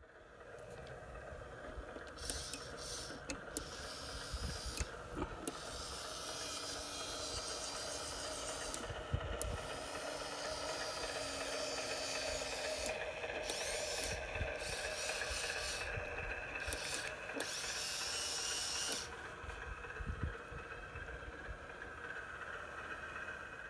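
LGB G-scale diesel shunting locomotive running, its Massoth sound decoder giving a steady diesel engine sound over the motor and gear whine. There are several spells of hiss and scattered sharp clicks.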